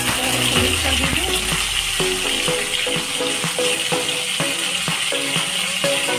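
Hot oil sizzling in a kadhai with mustard seeds, curry leaves and green chillies for a tempering, stirred with a spatula, over background music.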